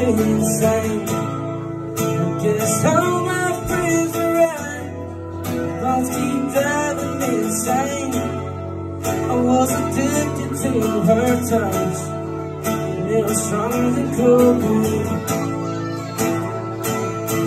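Live music: a man singing to his own strummed acoustic guitar.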